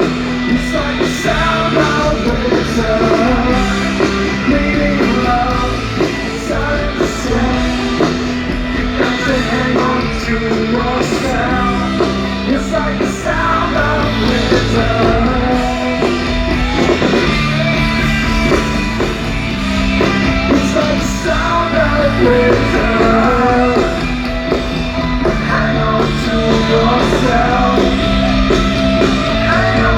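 Live rock band playing a loud song, with sung vocals over electric guitars and a bass line that holds each note for a second or two.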